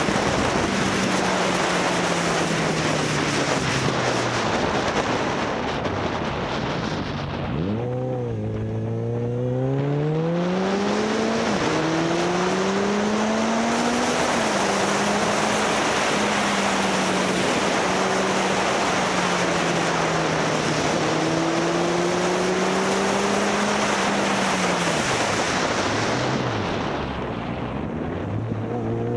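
Motorcycle engine under way with heavy wind noise on the microphone. The engine note falls as the bike slows about a quarter of the way in, then climbs again in steps through gear changes and settles at a steady cruise. It slows and picks up again near the end.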